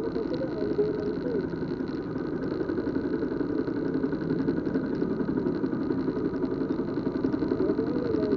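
Car engine idling steadily in stopped traffic, a low, even hum heard from inside the car.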